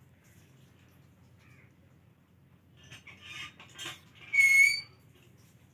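A second of scuffling, then one loud, short, high-pitched squeak held on a steady pitch.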